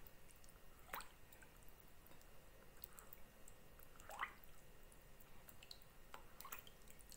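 Faint wet swishing and dripping of a silicone spatula stirring a thin milky liquid in a glass bowl, with a few soft swishes about one, four and six and a half seconds in.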